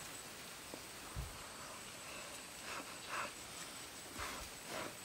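Faint rustling in dry leaf litter, a few short soft scuffs and a low thump, as fallen fruit is picked up from the forest floor and handled. A faint steady high tone runs underneath.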